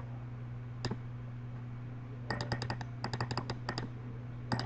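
Computer keyboard keys clicking: a single keystroke about a second in, a quick run of keystrokes in the middle, and two more near the end, over a steady low electrical hum.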